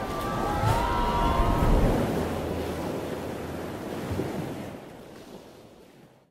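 Ocean surf and wind rushing, with a few brief high pitched tones about a second in, fading out to silence over the last couple of seconds.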